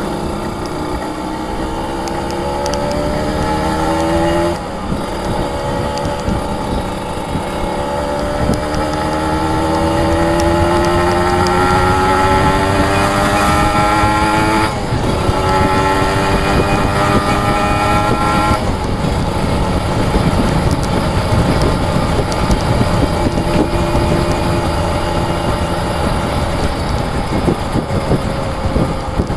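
Kawasaki Ninja RR two-stroke motorcycle engine accelerating hard. Its pitch climbs steadily through each gear and drops sharply at the upshifts about 5, 15 and 19 seconds in. After the last shift it settles into a steadier run.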